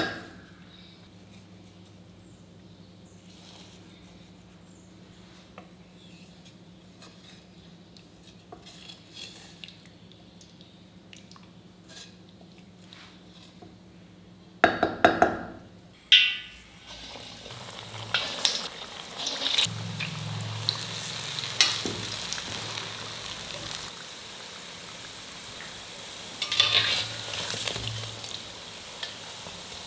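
A ladle stirs thick dal-and-tomato soup in a steel pot, with small scrapes and clinks. About halfway through come a few loud clatters, and then steady sizzling as bondas deep-fry in hot oil and a slotted skimmer turns them.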